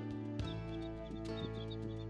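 Soft background music with long, sustained chords.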